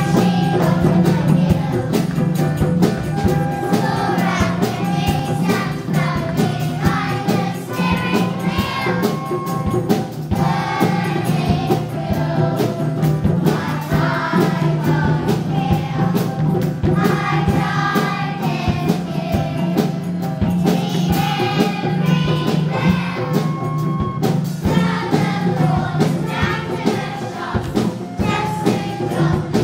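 A group of young children singing together as a choir, with instrumental accompaniment and a steady beat.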